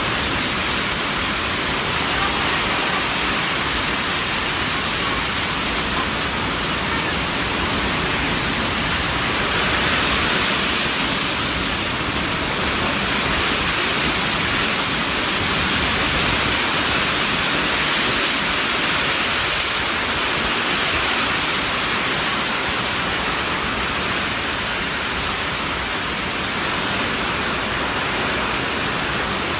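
Steady, dense hiss of heavy typhoon rain and wind, unbroken and even throughout.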